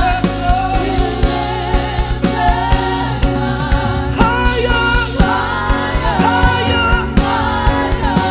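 Live gospel worship music: a band with bass and a steady drum beat, voices singing the melody over it.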